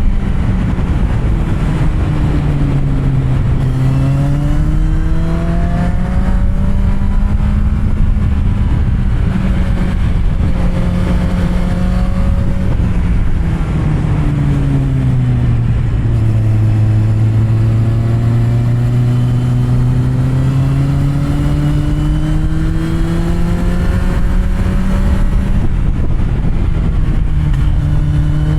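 Kawasaki Z750R's inline four-cylinder engine, with an SC Project aftermarket exhaust, riding under way. The engine note drops twice, about three seconds in and again around sixteen seconds in, as the throttle is rolled off, then climbs steadily as the bike accelerates back up through the revs.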